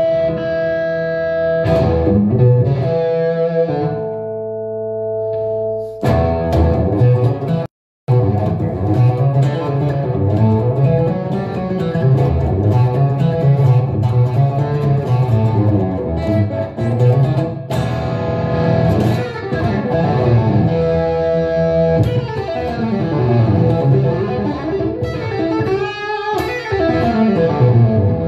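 Telecaster electric guitar through an amplifier, improvising blues lead lines: held notes at first, then busy single-note phrases. The sound cuts out completely for about half a second around eight seconds in.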